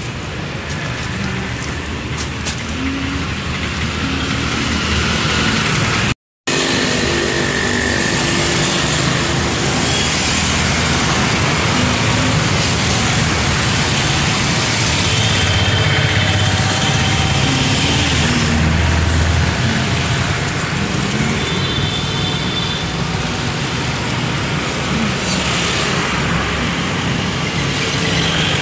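YDM4 metre-gauge diesel locomotive idling with a steady low engine rumble. The sound cuts out for a moment about six seconds in.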